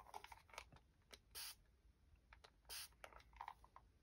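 Very faint handling sounds of small hand tools on the work surface: scattered light clicks and two brief soft rustles.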